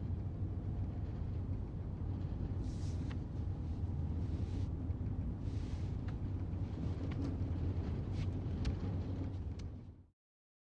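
A steady low rumble with a faint hiss over it, a few light clicks and two soft swells of hiss, cutting off abruptly to silence about ten seconds in.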